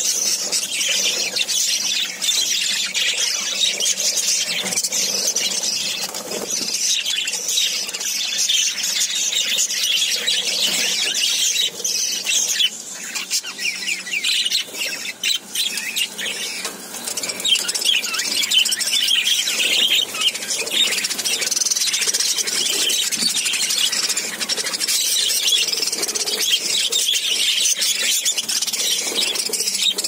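A flock of budgerigars chattering without pause, with many high warbles, chirps and squeaks overlapping.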